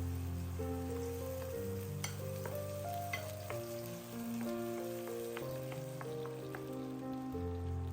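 Music of held notes and a stepping bass line over a steady crackling hiss.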